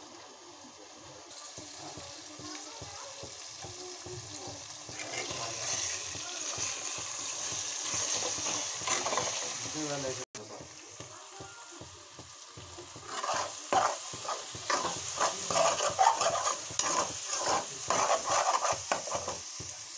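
Eggs and chopped vegetables frying in oil in a metal wok-style pan, sizzling. From a little past halfway a spatula scrapes and stirs through them in quick strokes, about two or three a second, scrambling the eggs against the pan. These strokes are the loudest part.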